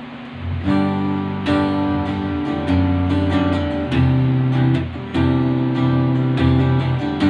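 Electric guitar strumming a slow chord progression, starting about half a second in, with a new chord struck about every second.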